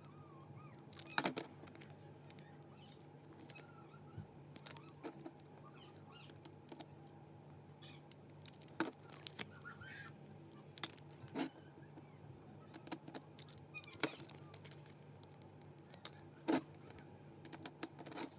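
Irregular light clicks and taps of small hard plastic 3D printed cube pieces being handled and set down while stickers are put on them, a few sharper clicks standing out.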